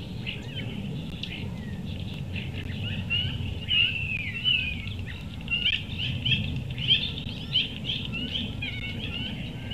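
A chorus of small birds chirping and calling together, many short rising and falling notes overlapping, a few louder calls standing out now and then, over a steady low rumble.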